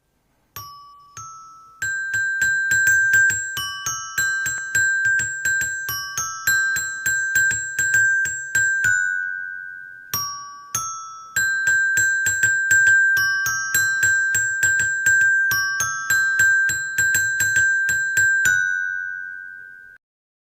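A tinkling, bell-like tune of short chiming notes, like a glockenspiel or music box, played through twice and stopping just before the end.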